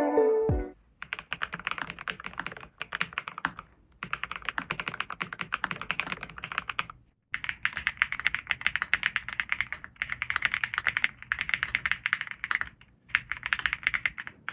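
Mechanical keyboard being typed on fast, in bursts of rapid clacking keystrokes broken by short pauses; not a silent-switch model.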